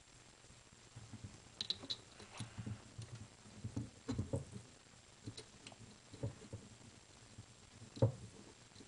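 Close handling noise of small plastic and metal paintball-marker parts: scattered light clicks, taps and scrapes as the grip is fitted back on, with one sharper click about eight seconds in.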